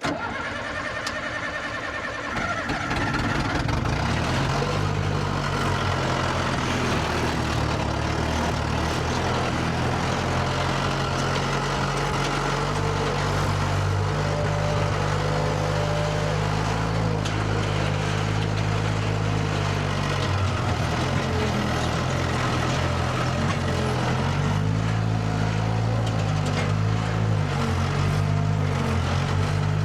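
An engine picks up about two to three seconds in, then runs steadily, its speed shifting up and down a few times.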